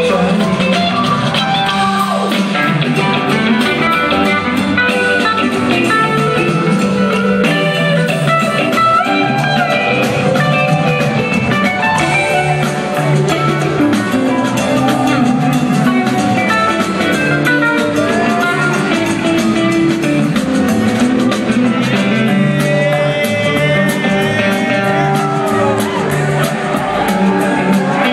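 Live rock band playing loudly: electric guitars, bass, keyboards and drum kit, recorded from within the audience.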